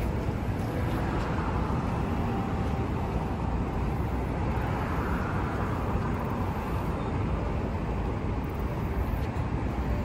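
Steady outdoor background noise: an even low rumble with no distinct events.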